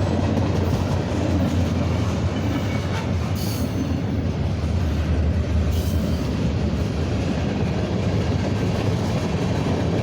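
Freight cars of a CSX mixed manifest train rolling past: a steady, loud rumble of steel wheels on the rails.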